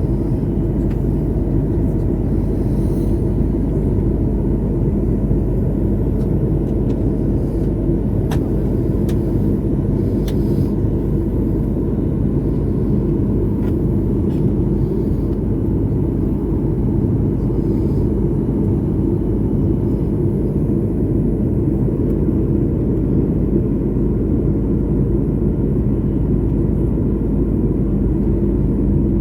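Airliner cabin noise in flight on approach: a steady rumble of the engines and rushing air, with a faint steady hum.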